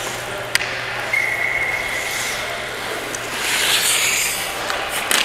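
Hockey skate blades scraping and carving on ice during play, with a sharp click about half a second in and a louder scrape a little after the middle.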